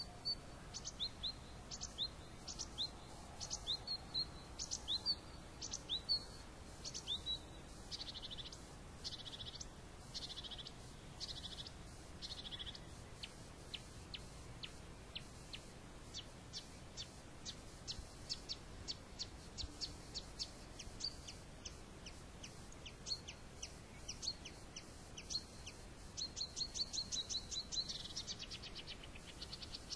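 Small songbirds chirping, with repeated short, high notes and quick trills; the calls come thickest in the first several seconds and again in a rapid run near the end.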